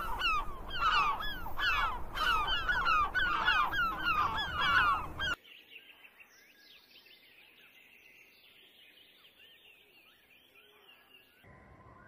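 A flock of birds calling loudly, with many short hooked calls overlapping several times a second. After about five seconds it cuts abruptly to faint, high twittering of small birds.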